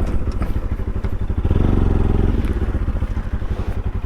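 Motorcycle engine running with a fast, even beat, growing louder about a second and a half in and easing off again after another second.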